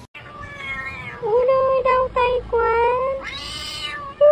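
A domestic cat meowing repeatedly in a run of about five drawn-out meows, louder from about a second in, the last one harsher.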